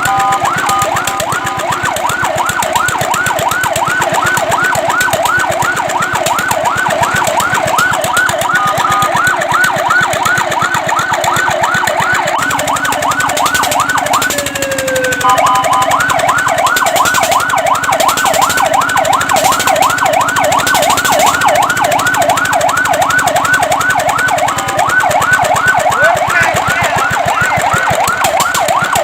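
Fire truck siren sounding a fast up-and-down sweep, about three cycles a second. About halfway through it breaks off briefly with one falling sweep, then carries on.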